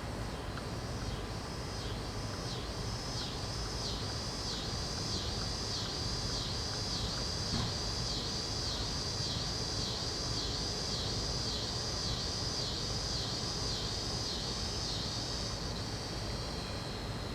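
Scissor grinder cicada (Neotibicen pruinosus) singing: a high buzz pulsing about twice a second, which smooths out and fades near the end. A steady low background rumble runs underneath.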